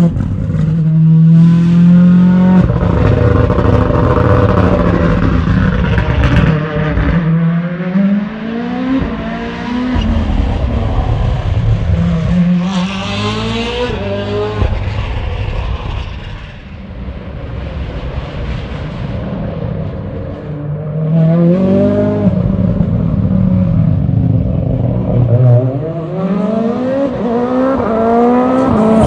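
Hyundai i20 N Rally1 rally car's turbocharged four-cylinder engine accelerating hard, pitch climbing and dropping again at each quick upshift, several times over. It fades for a while in the middle, then builds up again.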